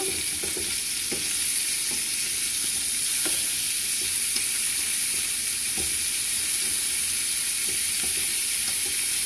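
Chicken pieces searing in butter in a frying pan, sizzling steadily, with a few light knocks of metal tongs against the pan as the pieces are turned to brown the other side.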